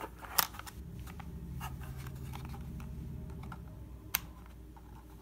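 Hard plastic clicks and taps from a 3D-printed PLA tricorder shell being handled, the sharpest about half a second in and another about four seconds in, over a low hum.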